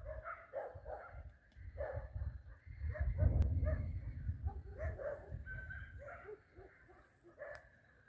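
A chorus of frogs croaking in a pond, many short calls overlapping one another, over a low rumble of wind on the microphone that swells about three seconds in.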